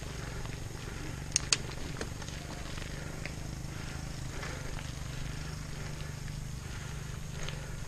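Riding noise from a mountain bike on a rough gravel road, heard from a camera mounted on the rider: a steady rush of tyre roll and wind buffeting. A couple of sharp clicks come about one and a half seconds in.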